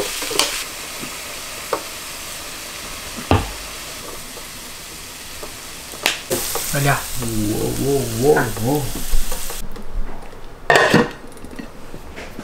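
Food sizzling in oil in a frying pan while a wooden spoon stirs it, with scattered clicks and a louder knock of the spoon against the pan. A brief wavering pitched sound joins in the middle. The sizzle cuts off near the end and a sharp knock follows.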